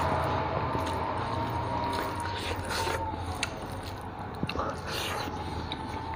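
Close-miked eating: fingers mixing rice on a steel plate and chewing, with a few short clicks. A faint steady whine runs underneath, drifting slightly in pitch.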